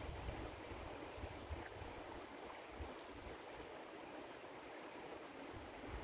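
Shallow river running over a stony bed: a steady, even rush of water. Low wind buffeting on the microphone comes in during the first second and again near the end.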